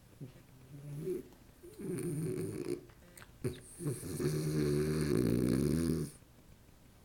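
French bulldog snoring: several short, uneven snores and snorts, then a longer, louder drawn-out snore that stops about six seconds in.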